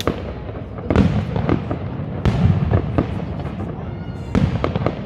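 Aerial firework shells bursting: four sharp bangs, each trailing off in a rumble, with smaller crackles between them.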